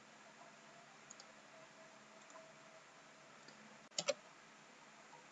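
Faint room hiss with a few soft clicks, then two sharp computer mouse clicks in quick succession about four seconds in.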